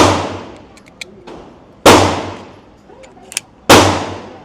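Glock pistol fired three times at an even pace, about two seconds apart, each shot ringing out in a long echo. Lighter metallic clinks fall between the shots.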